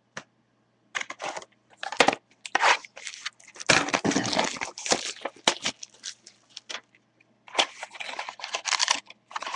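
Trading-card packaging being handled and opened by hand: cardboard mini-box and plastic wrapper crinkling and tearing in irregular bursts, with a short lull near the end.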